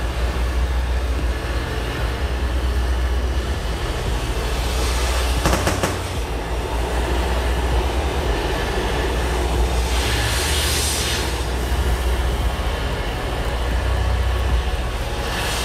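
A cutting torch burning through rusted, seized shock-absorber bolts on a semi truck: a steady flame roar, with a brief crackle about five seconds in and louder hissing about ten seconds in and again near the end.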